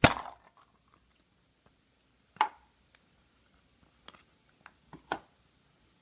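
Short crackles and clicks of a toy surprise egg being broken open and handled: a sharp crack at the start, another about two and a half seconds in, and a few lighter clicks near the end.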